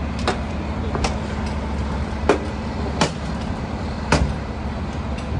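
Steady low hum of an idling fire truck engine, with five sharp metallic clicks at uneven intervals of about a second, from a grip hoist being worked to pull the car up on its wire rope.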